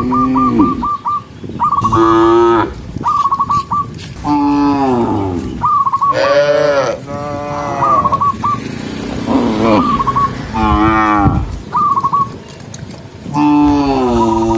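A herd of cattle mooing, one call after another with many overlapping voices, some deep and some higher-pitched.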